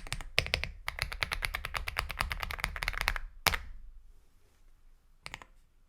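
Aula F75 mechanical keyboard with Star Vector switches typed on fast, a quick run of keystrokes for about three seconds. Then one louder single keystroke, and a couple more strokes near the end.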